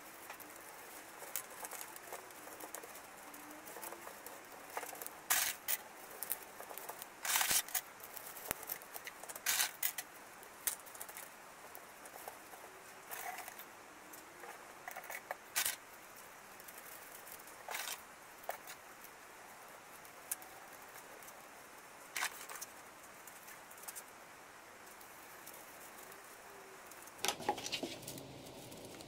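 Wooden bamboo skewers clicking and scraping against one another and the plastic pipe rings as they are pushed into a tightly packed bundle by hand: irregular light clicks and short scratchy rustles, with a busier cluster near the end.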